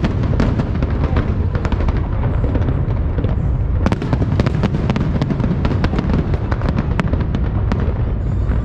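A continuous barrage of fireworks: many sharp bangs and crackles, several a second at irregular intervals, over a steady low rumble of distant booms.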